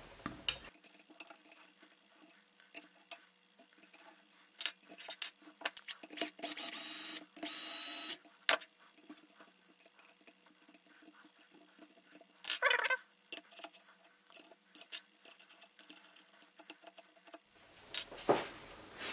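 Steel clamping-device parts and socket cap screws being handled on a steel grid plate: scattered metallic clicks and clinks as screws are removed and a hex key turns them. Two longer scrapes of metal sliding on metal come about 6 and 8 seconds in, and there is a short squeak near 13 seconds.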